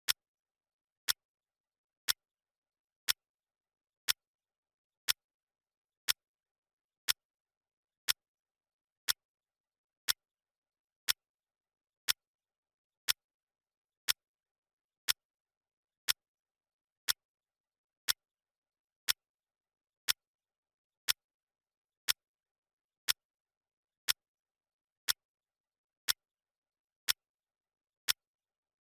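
Clock ticking sound effect: one sharp tick every second, evenly spaced, with silence between ticks.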